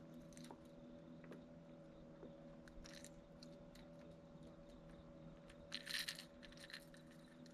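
Near silence: scattered faint clicks, with a soft rustle about three seconds in and again about six seconds in, over a faint steady hum.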